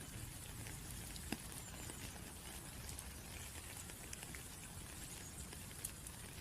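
Rain falling as a soft, steady hiss with scattered ticks of single drops. One sharper drip comes about a second in and another near the end.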